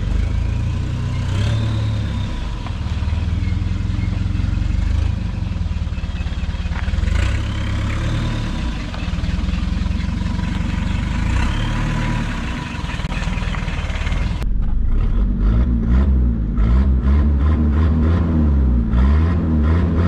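Nissan Terrano's diesel engine running with its rear exhaust section removed, a loud, open, unsilenced exhaust note as the vehicle pulls out. From about fourteen seconds in it is heard from inside the cabin, the revs rising and falling several times.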